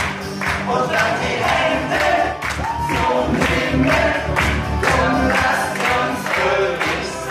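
A group of voices singing together over backing music with a steady beat.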